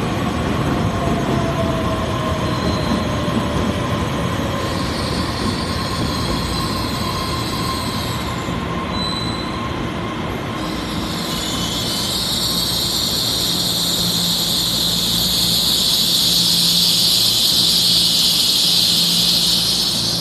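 Taiwan Railway EMU3000 electric train pulling into the platform and braking to a stop: its motor whine falls in pitch over the first few seconds, then a high brake and wheel squeal builds and is loudest near the end.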